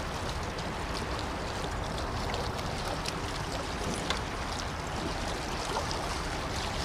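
Steady rush of the river's flowing water below the dam, with a few faint ticks over it.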